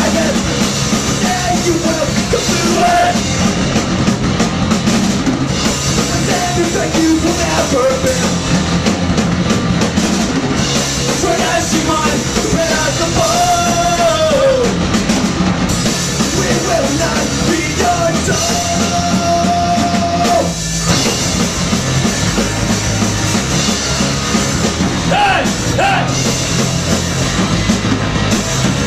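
Live punk rock band playing: electric guitar, bass and drum kit with shouted, sung vocals. The band breaks off for a moment about twenty seconds in, then crashes back in.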